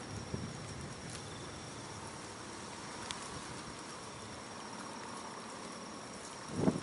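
Insects buzzing in the grass: a steady, high-pitched drone. Near the end there is one short, louder low sound.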